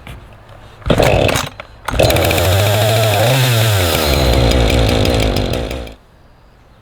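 Two-stroke chainsaw engine firing briefly, then running for about four seconds with one rev up and back down midway, and cutting off abruptly.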